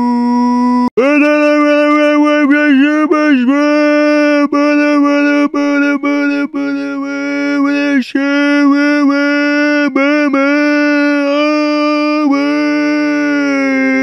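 Goofy meme scream sound effect: one voice holds a loud, steady, piercing note, broken by brief catches and quick dips in pitch, most often in the first few seconds.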